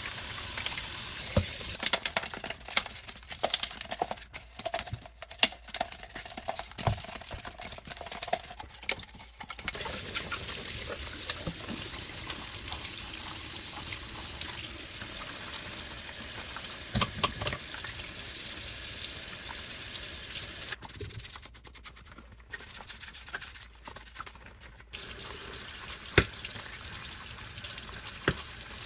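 Tap water running into a sink while the plastic dust bin of a Dyson vacuum cleaner is rinsed by hand. The flow stops twice for several seconds, and in those gaps plastic parts clack and knock as they are handled.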